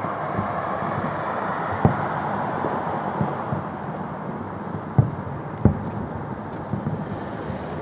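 Fireworks salute: shells bursting with sharp booms, the loudest about two seconds in and twice around five seconds in, with smaller thumps between, over a steady wash of noise.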